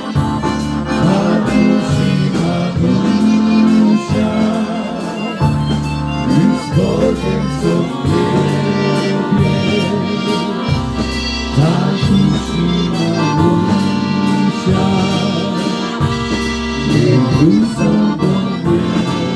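Live polka band playing an instrumental passage with a steady beat and an alternating bass line.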